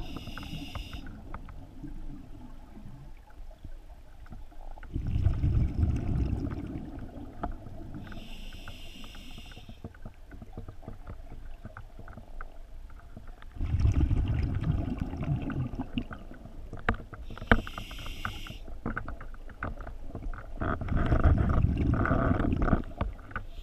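Scuba diver breathing through a regulator: three breaths, each a short hissing inhalation followed a few seconds later by a longer rumbling burst of exhaled bubbles.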